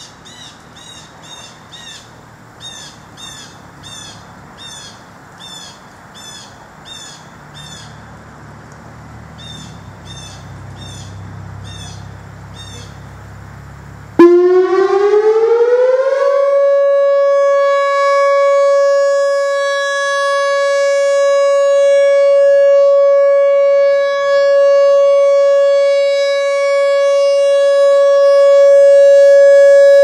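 A small bird chirps repeatedly. About halfway through, a Whelen WPS-4000 electronic tornado siren starts suddenly in alert mode, its pitch rising for about two seconds before it holds one steady, loud tone. The tone swells and dips as the rotating horn array turns.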